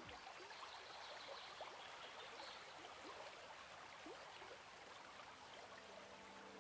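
Faint sound of shallow stream water trickling over rocks, with small bubbling plinks in a soft steady hiss.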